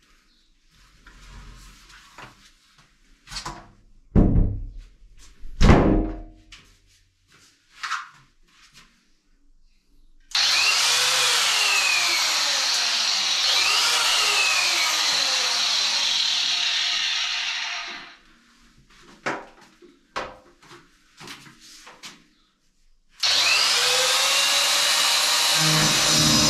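Bosch PWS620-100 disc grinder with a segmented diamond wheel cutting into a 12 mm mortar wall in two runs: about eight seconds starting about ten seconds in, and again from about twenty-three seconds in, its whine dipping and rising as the wheel bites. Before the first cut, a few knocks and thumps of handling.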